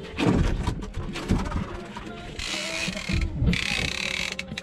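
Conventional saltwater fishing reel clicking and buzzing as a fish is fought on the line, with quick runs of ratchet-like ticks and stretches of hiss.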